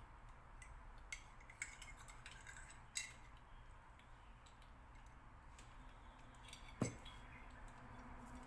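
Scattered faint clinks of a metal teaspoon against a ceramic coffee mug, the sharpest about three seconds in, and a thump about a second and a half before the end.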